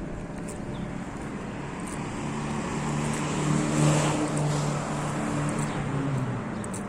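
A motor vehicle passing by: its engine hum and road noise swell to a peak about four seconds in, then fade.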